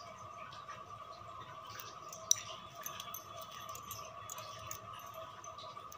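Beads and a beading needle being handled, giving faint small clicks and clinks, with one sharp click a little over two seconds in. A faint steady hum runs underneath.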